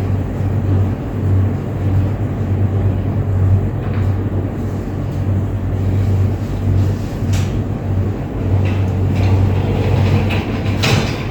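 A steady low rumble with a few faint knocks or clicks.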